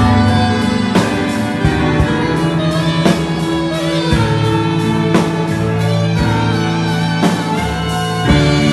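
Instrumental music: sustained pitched notes and chords over a steady beat, with a sharp hit about once a second.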